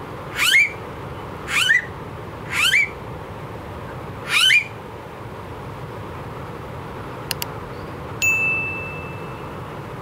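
Blue-faced honeyeater giving four loud, rising whistled calls in the first half. Later come two quick clicks and a bell-like ding that rings on for over a second: a subscribe-button sound effect.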